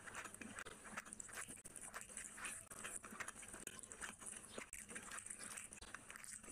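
Close-miked eating sounds of a person chewing a mouthful of rice and curry, with irregular wet mouth clicks and smacks.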